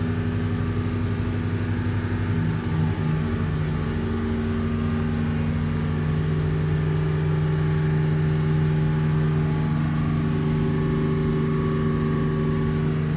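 Twin Volvo Penta KAD300 diesel sterndrive engines running steadily at planing cruise, about 3300 RPM, heard from the helm. There is a slight throb that evens out after about four seconds.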